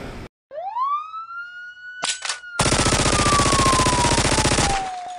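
A siren that winds up to a high pitch and then slowly falls. A short burst of gunfire comes about two seconds in, followed by about two seconds of rapid machine-gun fire over the falling siren.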